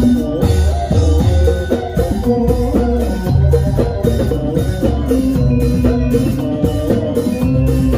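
Live Javanese gamelan music: kendang drums beat a steady, repeating rhythm under ringing metallophone tones.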